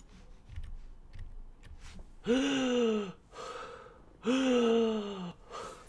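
A man letting out two long, drawn-out vocal groans, each about a second long and sagging slightly in pitch, with a short breath between them.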